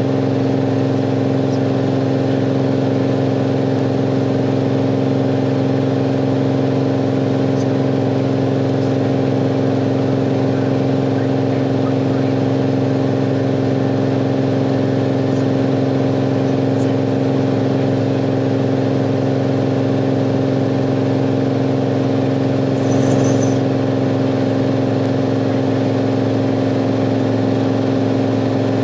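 Cirrus SR22's six-cylinder piston engine and propeller droning steadily at constant power in level flight, heard inside the cabin. A short faint rush of hiss comes late on.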